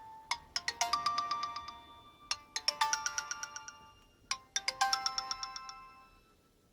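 Nokia 6230b mobile phone playing a ringtone: a short phrase of quick notes that ring on and fade, repeated about every two seconds, dying out about six seconds in.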